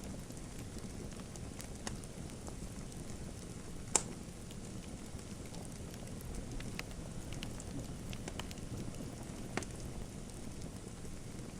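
Wood fire crackling in a fireplace: a steady low rumble of flames with scattered sharp pops and snaps. The loudest pop comes about four seconds in, and another clear one comes later.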